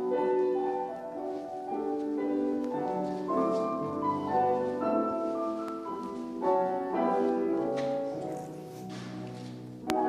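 Grand piano playing a classical minuet, a melody of changing notes over held chords.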